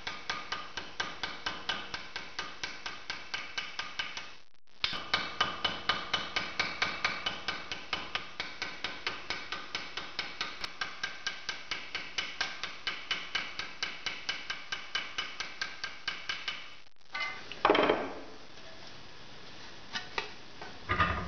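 Small pin hammer tapping lightly and rapidly on a copper rivet through a thin sheet-metal panel, about four taps a second, peening the rivet over to fix a label. The tapping stops a few seconds before the end, followed by a single clunk as the panel is handled.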